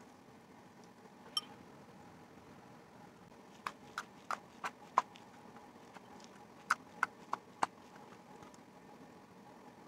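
Pink slime being poked and pressed with the fingers, giving off sharp popping clicks: one a little over a second in, a quick run of five around the middle, and four more a couple of seconds later.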